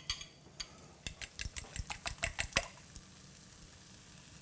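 A fork whisking beaten eggs in a glass bowl: a quick run of light clinks against the glass, about six a second, that stops about three seconds in.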